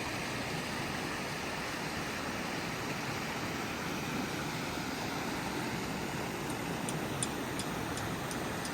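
Steady, even rushing noise with no rhythm or pitch, with a few faint high clicks in the second half.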